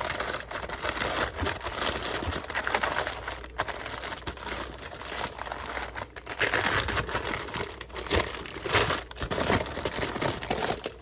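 Crinkling and rustling of the plastic liner of a Fruity Pebbles cereal bag as the cereal is shaken out onto the treats. The rustling comes in spells, with brief pauses about three and a half, six and eight seconds in.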